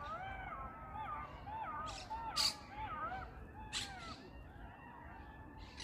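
A group of golden jackals howling together in their courtship season: several wavering wails rising and falling in pitch, overlapping one another. A few short sharp calls cut in, the loudest about two and a half seconds in.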